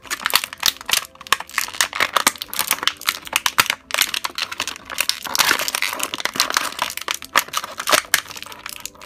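Clear plastic bag crinkling in the hands as a small doll is worked out of it: a dense run of quick, sharp crackles.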